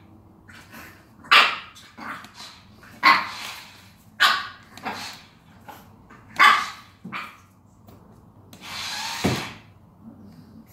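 French bulldog puppy barking at a toy remote-control car, about six short, sharp barks at irregular intervals. About nine seconds in, the toy car's electric motor whirs for nearly a second as the car drives off.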